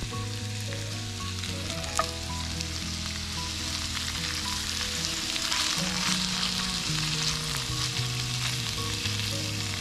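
Pre-boiled, spice-marinated pork ribs sizzling in a frying pan while being turned with a fork. The sizzle grows louder about halfway through, and there is a single sharp tap about two seconds in. Background music plays underneath.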